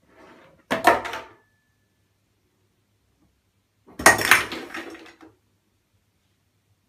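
Toiletry bottles knocked off a windowsill by a cat, clattering into a ceramic washbasin: first the pump soap bottle, then a can about three seconds later, each a short rattling crash.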